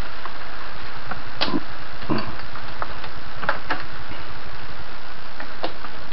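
Steady machine-like background noise with a handful of short, sharp clicks and knocks from wire and heat-shrink tubing being handled on a workbench.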